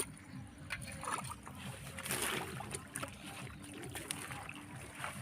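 River water splashing and sloshing in short, irregular bursts with small clicks, as it is stirred by wading and grabbing fish by hand.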